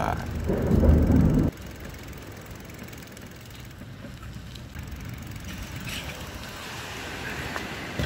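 Bicycle rolling over paving: a steady hiss of tyre and wind noise. It is preceded by a loud low rumble in the first second and a half, which cuts off suddenly.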